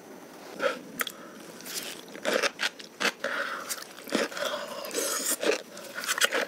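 Chewing and biting into salmon, cucumber and avocado sushi roll pieces, with irregular crunches from the cucumber.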